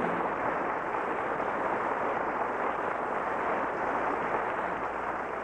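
Studio audience applause, a steady patter of clapping that begins to fade near the end.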